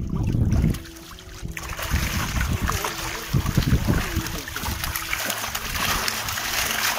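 Cage-farmed fish thrashing and splashing at the surface of a net pen in a feeding frenzy. A dense, continuous churning splash builds up about a second and a half in and keeps going.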